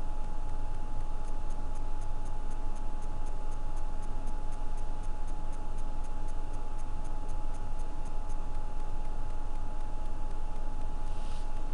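Steady hiss with a constant hum-like tone, and a run of light, regular ticks, about four a second, that starts about a second in and stops about eight seconds in. A brief hiss comes near the end.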